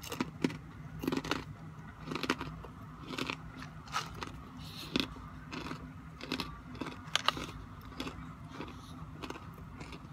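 Crunching and chewing of dried vegetable and fruit chips, with irregular crisp cracks about once a second.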